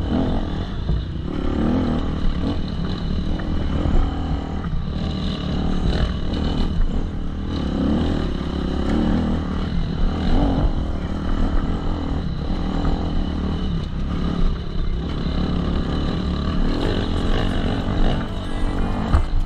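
Enduro dirt bike engine running off-road, its revs rising and falling as the rider throttles up the rough trail, heard from an onboard camera.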